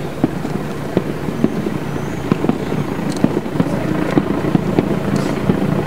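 Distant fireworks going off, many sharp pops and crackles in quick irregular succession over a steady low hum of background noise.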